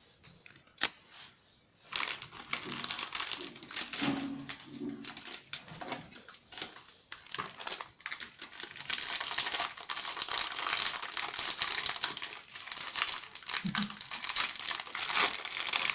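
Plastic biscuit packet wrappers crinkling and rustling as they are handled and opened, with many small crackles.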